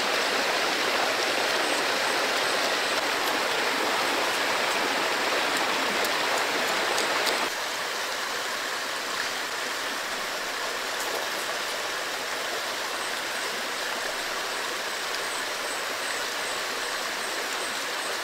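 Steady rushing of a shallow, rocky stream, a little quieter from about seven and a half seconds in.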